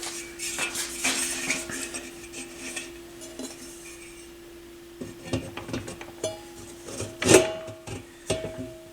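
Scattered metallic clicks and clinks of a small screwdriver and metal parts being handled while a trimmer potentiometer inside a turntable is adjusted, with one louder ringing clink about seven seconds in. A steady low hum runs underneath.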